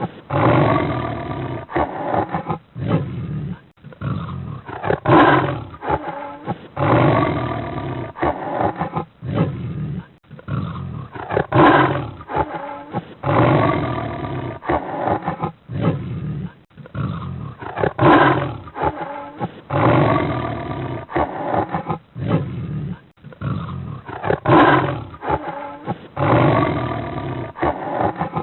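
Cheetah giving a long series of loud calls, each lasting a second or two, one every two to three seconds.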